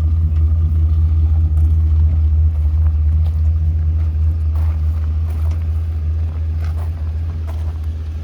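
A motor engine running steadily close by, a heavy low rumble with a few faint knocks on top, easing off slightly toward the end.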